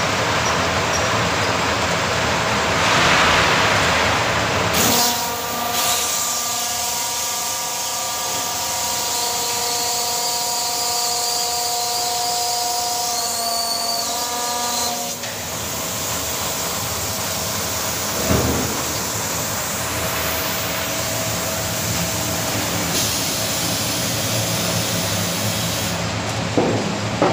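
Snack flavour-coating drum running, the stainless-steel drum turning and tumbling the pellets, with steady machine noise and hiss. A steady whine of several tones rides over it from about five seconds in, for about ten seconds.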